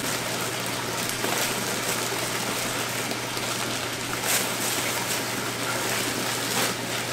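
Steady rush of running water from aquarium filtration with a steady low pump hum. Plastic fish bags crinkle briefly a few times as they are handled in the styrofoam shipping box.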